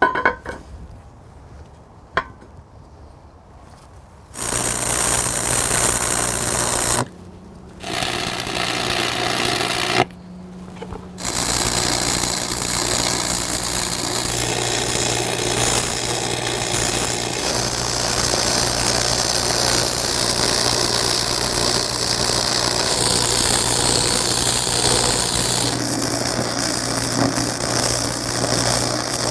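Stick welding on a steel beam with a Lincoln AC-225 arc welder: the arc hissing steadily over a low hum. Two short welds of a couple of seconds each start about four seconds in, then one long unbroken weld runs from about eleven seconds on.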